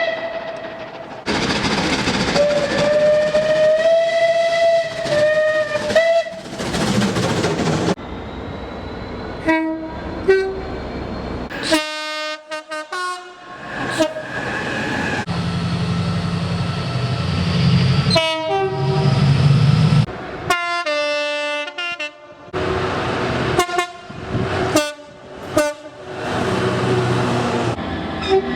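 Train horns sounding in a string of separate clips that cut abruptly from one to the next. There are long held horn chords and rapid clusters of short toots, with the rumble and wheel clatter of a passing train between blasts.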